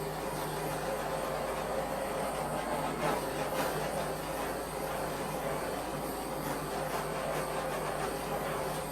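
Handheld torch running steadily over wet acrylic pour paint, a continuous hiss with a faint low hum, stopping right at the end. Torching brings up cells and pops air bubbles in the fresh pour.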